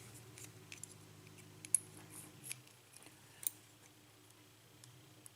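Key being worked into a Corbin pin-tumbler lock plug, giving a few faint, sharp metallic clicks a second or so apart.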